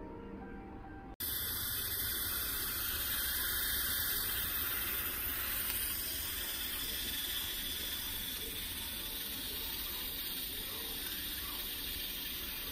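Instant Pot Plus Mini electric pressure cooker venting steam from its lid: a steady hiss that cuts in abruptly about a second in.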